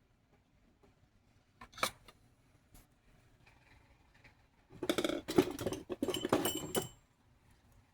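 Small metal objects clinking and rattling: a couple of clicks about two seconds in, then about two seconds of jangling with a brief metallic ring near its end.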